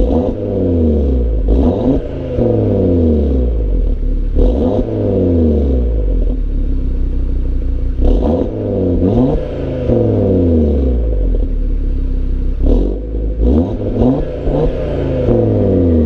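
2018 Audi RS3's turbocharged 2.5-litre five-cylinder engine revving repeatedly: each blip climbs quickly and the pitch glides back down, with the revs coming in short clusters of two or three.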